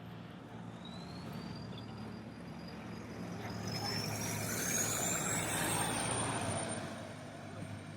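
Street traffic: a motor vehicle passing, its noise swelling and fading over a few seconds above a steady low engine hum. A thin high whine rises in pitch and then holds steady.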